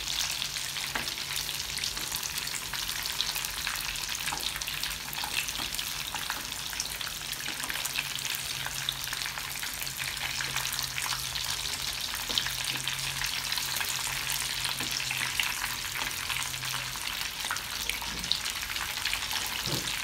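Mutton chops deep-frying in hot oil: a steady, dense crackling sizzle with scattered sharp pops as a slotted steel spoon stirs the pieces. The chops are fully fried and ready to lift out.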